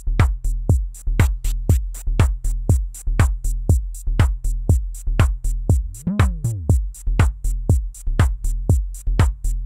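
The Division Department 01/IV four-voice analog drum synthesizer playing a steady looped pattern of pitched drum hits that drop quickly in pitch, about two a second, with faster high ticks over them. About six seconds in, one hit rings longer with a falling, many-toned sweep as its knobs are turned.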